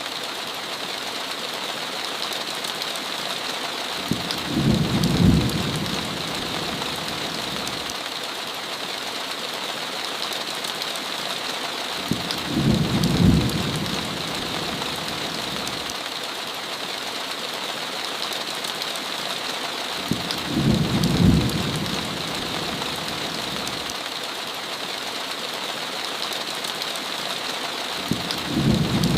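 Steady heavy rain hissing, with a short low rumble of thunder that comes back at even intervals about every eight seconds, four times in all.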